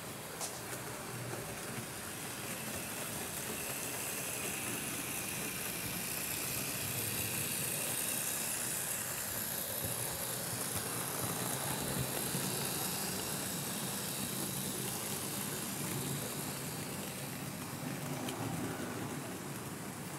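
Fleischmann BR 41 2-8-2 model steam locomotive and its loaded coal train running on the layout: a steady whirr and rolling hiss of the electric motor and wheels on the rails, growing louder toward the middle as the train passes close by, then easing off.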